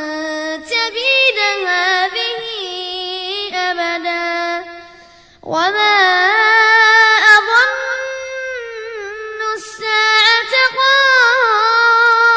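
A child's voice reciting the Quran in a melodic chant, in two long drawn-out phrases with a short breath between them about halfway through.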